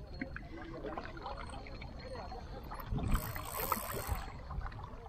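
Sea water lapping against a rocky shore, with a brief louder rushing hiss and a couple of thumps about three seconds in.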